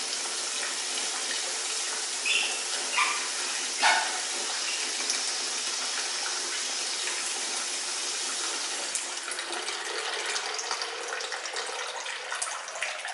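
Water running steadily from a bathroom mixer tap that will not shut off fully. There are a few short knocks in the first four seconds, and the flow thins out and turns uneven in the last few seconds as the water supply is turned off.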